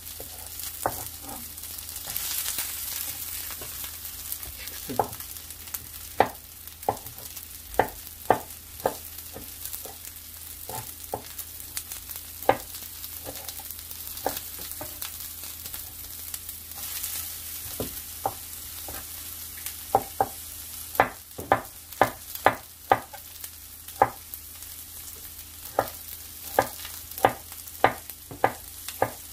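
A chef's knife slicing through king oyster mushroom and bamboo shoot on a wooden cutting board: sharp knocks of the blade on the board, few at first and then in quick runs near the end. Under them, vegetables sizzle in hot oil in a frying pan.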